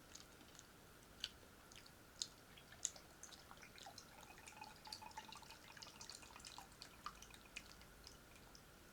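Faint, scattered wet clicks and smacks of a person chewing food, with a few sharper clicks a second or three in.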